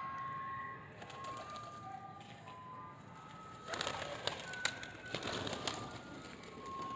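Pigeons in a coop, with short, high, thin bird calls, then a flurry of clattering wingbeats from about four seconds in as a pigeon flies up.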